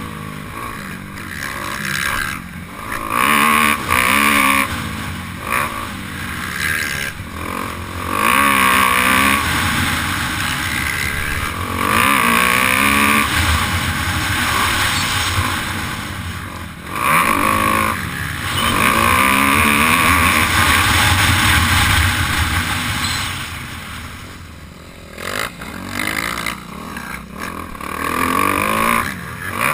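Motocross dirt bike's engine heard from on board, revving hard through the gears. The note climbs and drops back over and over as the rider accelerates and rolls off, and eases off briefly near the end before picking up again.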